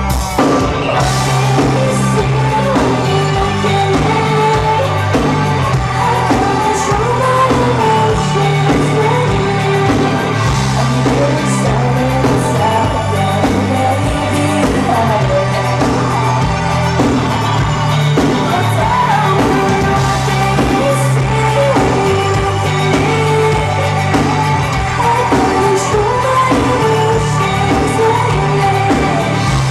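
Live pop-rock band playing through a club PA: electric guitars, bass and drums under a sung lead vocal, heard loud from the audience floor.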